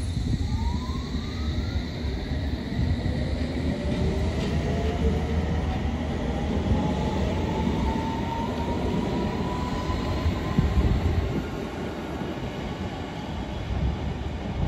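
London Underground S Stock electric train pulling along the platform. Its motors give a whine that rises steadily in pitch as it gathers speed, over a heavy low rumble of wheels on track.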